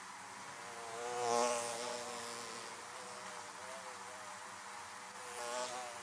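Honeybees buzzing at a hive entrance: a continuous buzz of many bees, wavering in pitch. It swells loud about a second and a half in and again near the end.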